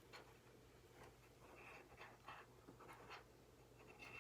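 Near silence with a few faint scratches and small clicks of light handling.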